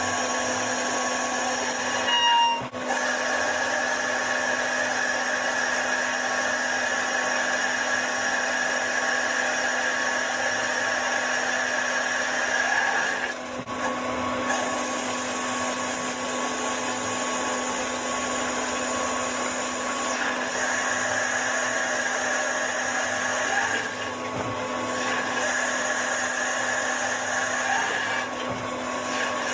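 CNC lathe turning a large aluminium disc: a steady machine whine and hiss from the spindle and the cut. The sound dips briefly four times.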